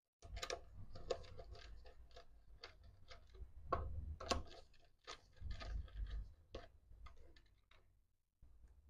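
A screwdriver working a terminal screw on a miniature circuit breaker, with stiff electrical cables being handled: irregular sharp clicks, taps and scrapes over a low handling rumble.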